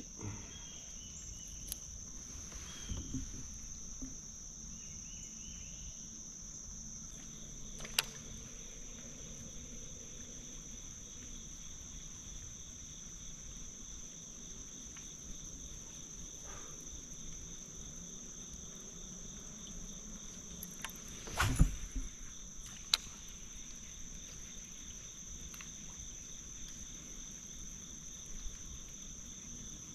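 Steady, high-pitched chorus of insects singing without a break. A few knocks cut through it: a small one about a quarter of the way in, and a louder clatter about two-thirds of the way through followed by a click.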